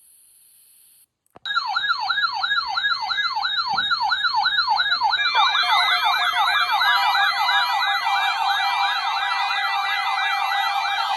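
Weather radio receivers sounding their electronic siren alert, set off by the weekly test warning alarm: a loud, fast warbling sweep, about three and a half rises and falls a second. A faint static hiss cuts out just before it starts, and a second siren joins about five seconds in, out of step with the first.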